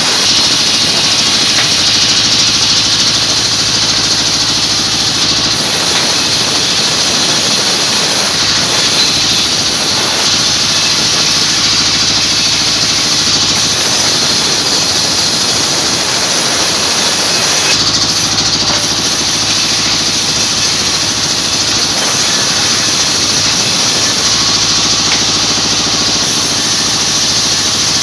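A powered sawmill ripping saw running continuously and cutting jackfruit-wood planks into thin boards. A steady motor hum sits under a loud, high hiss of the blade in the wood, with the low part shifting several times as planks go through.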